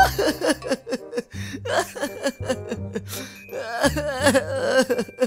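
Background music with a steady bass line, over a man's exaggerated crying and wailing, his voice wavering up and down.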